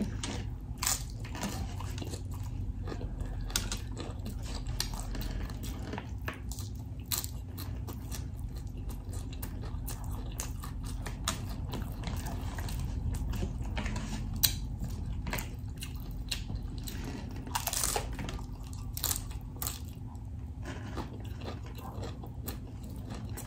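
Close-miked chewing and crunching of a hard corn taco shell and its filling, with irregular crisp crunches.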